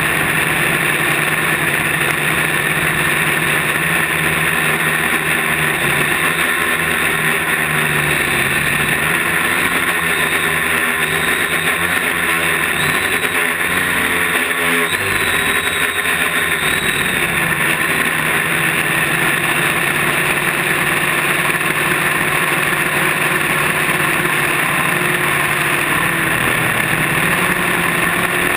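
Quadcopter's electric motors and propellers buzzing steadily in flight, heard from the camera mounted on its frame. The motor pitch wavers up and down for several seconds midway as it manoeuvres.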